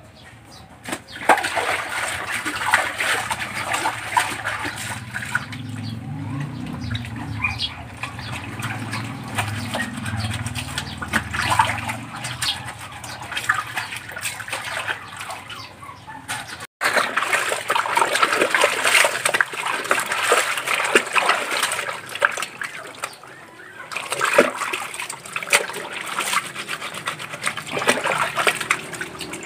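Water sloshing and splashing in a plastic basin as clothes are rubbed and swished by hand in soapy water, in uneven bursts.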